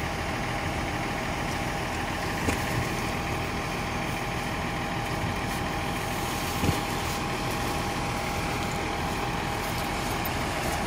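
Kawasaki wheel loader's diesel engine idling steadily, with a constant whine over its hum. Two brief knocks come through, one a couple of seconds in and a louder one just past the middle.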